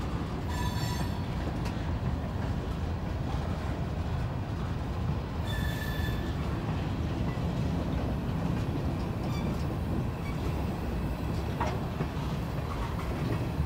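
Freight train hopper cars rolling slowly past, a steady low rumble of wheels on rail, with brief high wheel squeals about half a second in and again around six seconds in.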